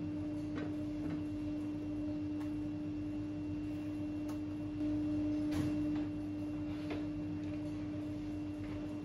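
A steady machine hum at one constant pitch, a little louder for about a second around five seconds in, with scattered light clicks and knocks.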